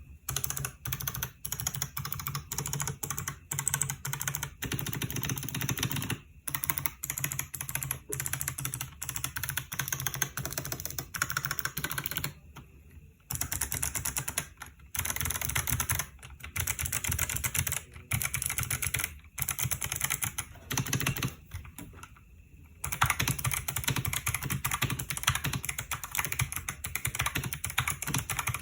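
Fast, continuous typing on a ROVER84 v3 mechanical keyboard with stock, factory Kailh Box White clicky switches: a dense run of crisp key clicks and bottom-outs, broken by two short pauses, one about halfway through and one about three quarters of the way through.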